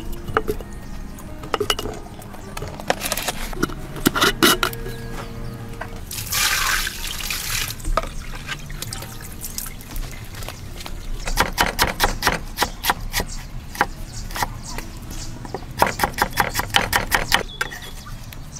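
A splash and pour of water lasting a couple of seconds, then two runs of fast, even knife strokes chopping on a cutting board, at several strokes a second.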